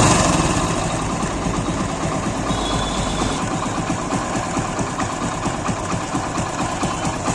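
Hero Splendor Pro's single-cylinder four-stroke engine idling steadily, easing down to a settled idle in the first second. The faint timing-chain-like jingle is absent, now that the defective timing-chain roller has been replaced.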